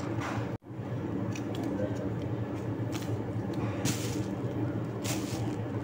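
Thin plastic bag crinkling in three short bursts in the second half, with faint small clicks of shallots being peeled by hand with a small knife, over a steady low hum. The sound cuts out for an instant about half a second in.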